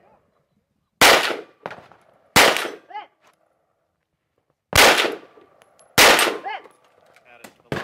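Four shots from an FK BRNO PSD pistol chambered in 7.5 FK, in two pairs, the second pair starting about two and a half seconds after the first. Each sharp report trails off with a fainter echo.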